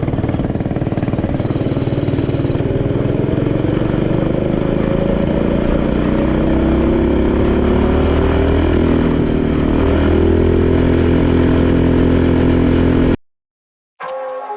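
Predator 212 single-cylinder engine on a mini bike running with a stock camshaft just fitted. Its speed climbs over several seconds, then holds steady. The sound cuts off abruptly near the end.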